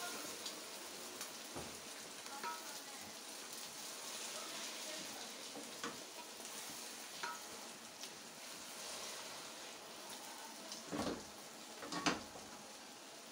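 Yellow rice cooking in sugar syrup in a steel pot, sizzling steadily, with a few light clicks. Near the end a spoon stirs the rice and scrapes against the pot twice.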